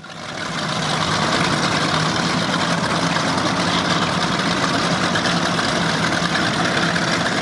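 Powerboat engine running at idle with a steady low hum under an even hiss; the sound fades in over the first second.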